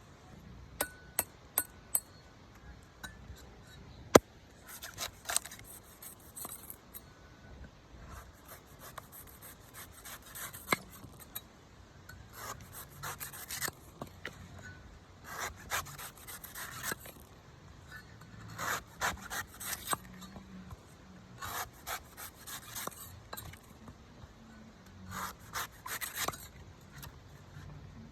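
A blade scraping and shaving a coconut in repeated runs of rasping strokes, after a few sharp knocks near the start and one loud knock about four seconds in.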